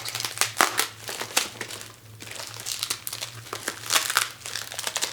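Bubble-wrap and plastic packaging crinkling and crackling irregularly as it is pulled open by hand.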